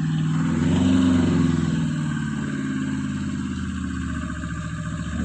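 Tractor engine sound, rising in pitch briefly about a second in, then running steadily at idle.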